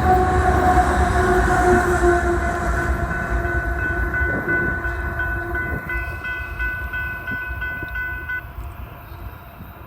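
Freight train rolling past and moving away, its low rumble fading steadily. Steady tones ride over the rumble for the first half, and a regularly pulsing high ringing comes in about three seconds in and cuts off about eight seconds in.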